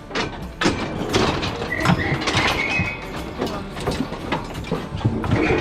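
Metal cattle chute rattling and clanking as a restless cow shifts inside it: irregular knocks and clatter, with a short squeak about two seconds in.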